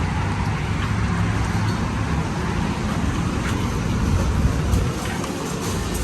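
Steady road noise of a moving car: a low rumble with an even hiss, no breaks.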